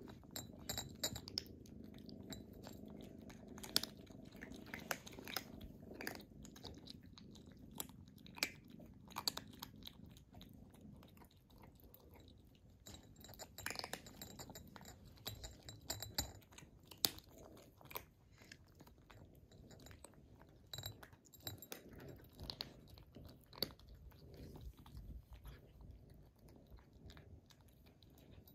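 Kittens eating from ceramic bowls close up: steady chewing with many irregular small sharp clicks.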